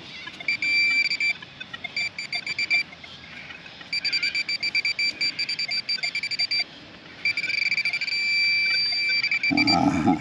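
Metal detector pinpointer beeping at one fixed pitch, in groups of quick pulses that run together into a near-steady tone at its closest approach to a buried coin. A rough low sound comes in near the end.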